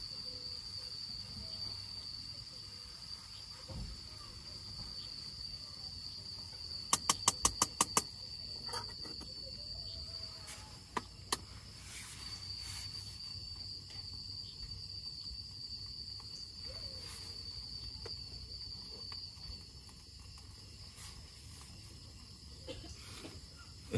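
Crickets trilling steadily on one high, unbroken note. A quick run of about eight sharp clicks comes around seven seconds in, and a single click near eleven seconds.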